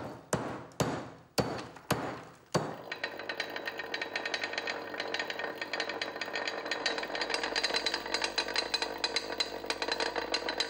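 A pestle pounding ore in a steel percussion mortar, five sharp ringing blows about two a second, ore being crushed. About two and a half seconds in, a vibrating disc mill starts with a fast, continuous metallic rattle and a steady whine as its steel grinding set pulverises the crushed ore to powder.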